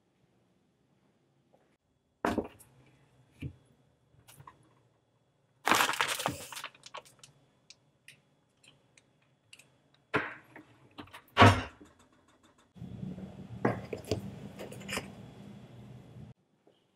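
Kitchen handling sounds: several separate knocks and clatters of items being set down or moved, the loudest about halfway through, a short burst of rustling around six seconds in, and a few seconds of steadier noise scattered with clicks near the end.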